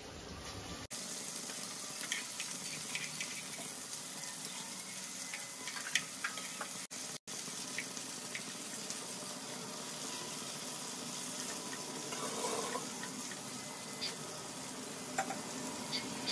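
Hot oil sizzling steadily as chana dal pakoras deep-fry in a kadai and seekh kebabs shallow-fry in a pan, with scattered small pops and clicks as a wooden spatula turns the kebabs.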